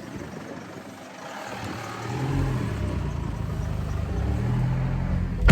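A car engine running with a low hum that builds about two seconds in, then a car door slams shut near the end.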